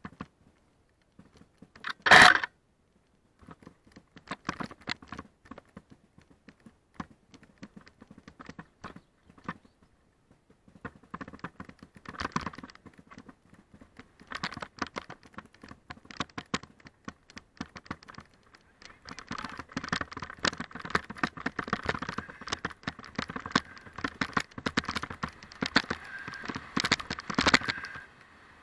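Mountain bike descending a rough dirt and gravel trail, the bike and its mounted camera rattling and clattering over stones and bumps, with one loud knock about two seconds in. The rattle thickens into a near-continuous clatter in the second half.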